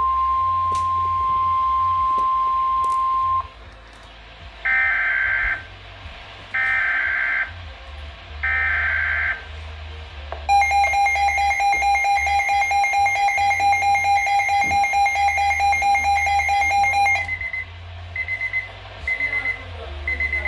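Weather radio alert signals: a steady single tone of about 1 kHz for a few seconds, then three short screechy digital data bursts about two seconds apart. After them comes a loud pulsing alarm tone lasting about seven seconds, followed by a string of short high beeps.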